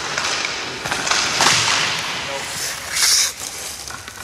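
Hockey skate blades scraping across the ice, with a sharp, hissing stop about three seconds in; a couple of light clicks near the start.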